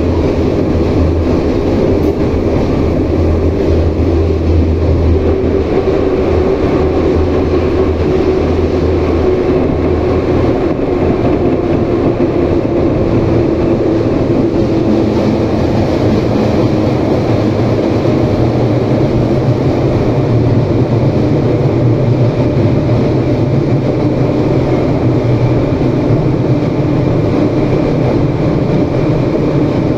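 Inside an 81-717/714 metro car running at speed through a tunnel: a loud, steady rumble of wheels on rail. Under it runs a motor hum whose pitch shifts down gradually in the second half.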